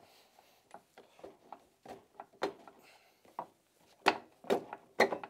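Hand wrench working a nut on a snowmobile's front spindle and A-arm joint: a string of short metallic clicks and knocks, light and irregular at first, then four louder strikes about half a second apart near the end.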